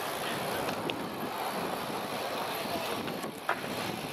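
Wind buffeting the microphone, a steady rushing noise, with a single sharp click about three and a half seconds in.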